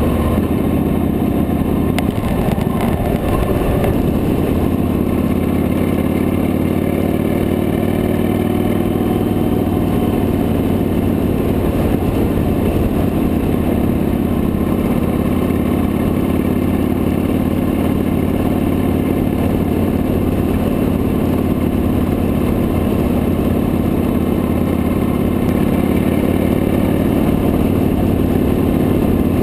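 Victory High Ball's big V-twin engine running steadily at cruising speed, heard from the handlebars, its pitch shifting a little now and then.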